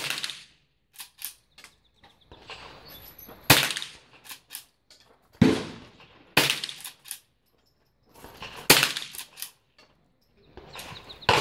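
Lever-action rifle firing repeatedly: about five sharp shots spaced unevenly, one to three seconds apart, each with a short ringing tail, with quieter clicks in between.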